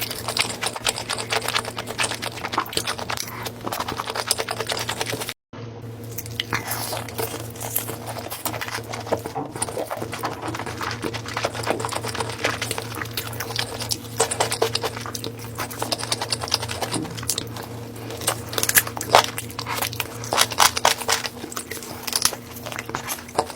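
Close-miked eating: irregular crunching and wet chewing clicks of food being bitten and chewed, over a steady low hum. The sound cuts out completely for a moment about five seconds in.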